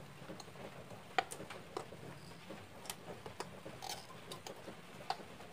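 Scattered small clicks and ticks from desoldering a transistor on the solder side of a TV circuit board with a soldering iron, the sharpest about a second in and again near the end, over a faint steady low hum.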